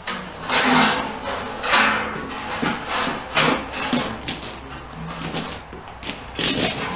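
Footsteps crunching on a gravel floor, mixed with wooden boards being carried and knocked: a series of irregular crunches and clunks.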